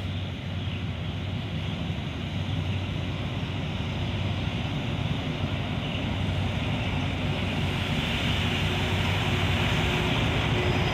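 Alsthom AHK diesel-electric locomotive running as it approaches at low speed: a steady low engine hum over a wash of noise, growing gradually louder.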